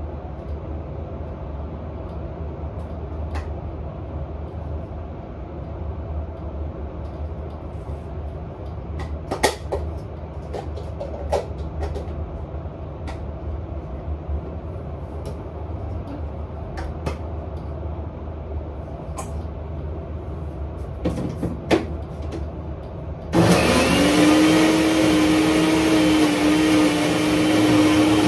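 A steady low hum with scattered light clicks and knocks, then, about 23 seconds in, an electric blender starts up on onions: its motor whine rises quickly and then runs steady and loud.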